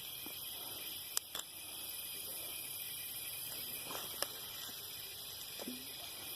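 A steady chorus of night insects chirping, with a few sharp clicks about a second in and again about four seconds in.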